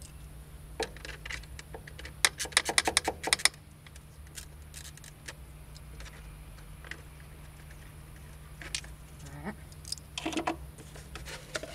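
Hand tools clicking and clinking on fasteners in a car's engine bay: a quick run of sharp clicks about two seconds in, then scattered single taps and a short cluster of clinks near the end.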